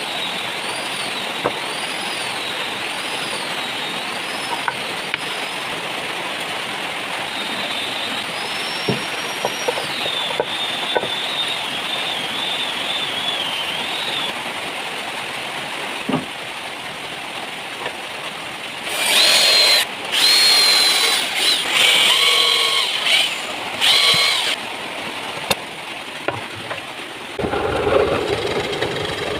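Power drum sander running with a steady hiss and a whine that wavers up and down in pitch. About two-thirds of the way in, it gets much louder in several short bursts with a stronger whine, and near the end it changes to a lower rumble.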